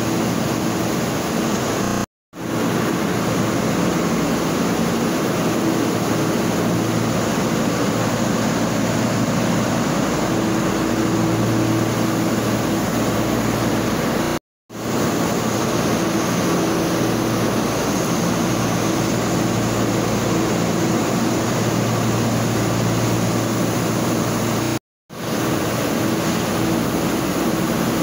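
Steady machinery drone of a production floor: a constant loud noise with a few low, steady hum tones under it. It cuts out to silence three times, each for a fraction of a second.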